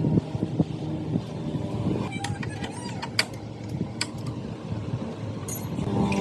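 Motorcycle engine idling steadily, with a few sharp metallic clicks from about two to four seconds in; the engine picks up slightly near the end.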